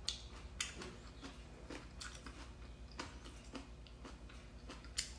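A person chewing a mouthful of stir-fried rice noodles with fried tofu and enoki mushrooms, making soft, irregular mouth clicks and smacks.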